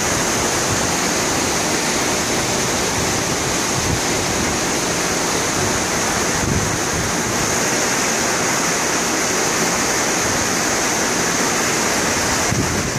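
Churning wake of the cruise ship Island Princess, seen from the stern: a steady rush of foaming water. A few brief low rumbles, about 4 and 6.5 seconds in and near the end, are wind gusts on the microphone.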